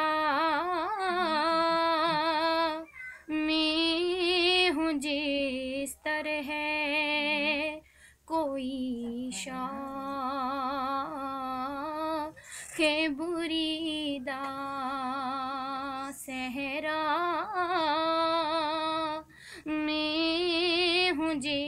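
A woman singing a naat, a devotional song in praise of the Prophet, alone and unaccompanied. She holds long notes with a wavering, ornamented pitch, pausing briefly between lines.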